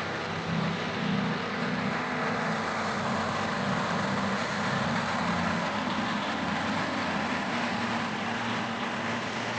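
A motor vehicle running steadily on the road: an engine hum that swells and eases, under a constant rush of road and wind noise.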